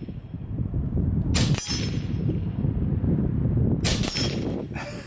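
Two shots from a .30 caliber Skout Epoch PCP air rifle, about two and a half seconds apart. Each report is followed a split second later by the pellet clanging on a hanging steel gong target, which rings on briefly.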